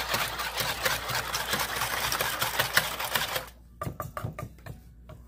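Wire balloon whisk beating an egg-and-milk batter in a plastic bowl: a fast rattling clatter of the wires against the bowl. About three and a half seconds in it drops to quieter, separate taps, a few a second.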